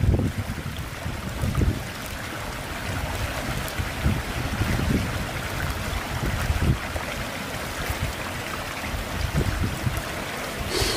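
Steak searing on a fire-heated river stone, a steady hiss with a few soft pops, while wind buffets the microphone in low gusty rumbles.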